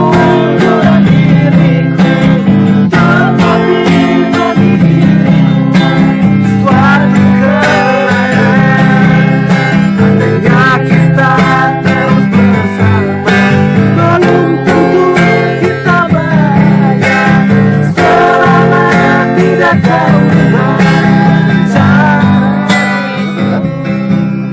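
Acoustic guitar strummed in a slow song, with a wavering melody line over the chords; no words are sung, and the music eases off slightly near the end.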